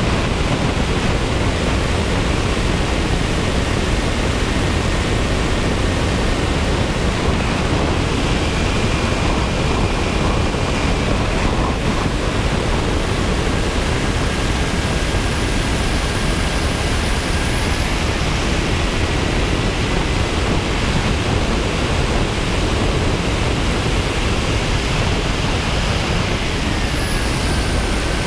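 Air rushing steadily over the onboard camera of a radio-controlled model plane in flight, with a thin, high motor whine on top. The whine rises in pitch about eight seconds in, drops a few seconds later, rises again after about eighteen seconds and falls near the end as the throttle changes.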